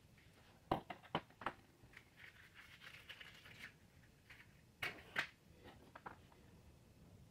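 Metal eyeglass frame set down on a wooden floor with a few light clicks, then a match struck on its box, two quick scratches close together, and lit.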